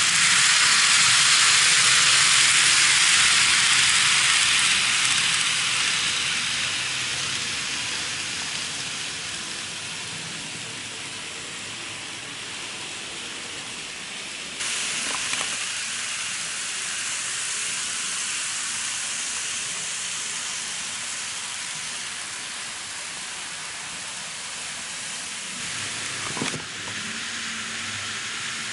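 N-gauge model trains running on their track: a steady rushing hiss of wheels on rail. It is loudest as a Kintetsu 8600-series model passes close at the start, then fades over the next several seconds, and it returns at a lower level after two sudden cuts. A low steady hum joins near the end.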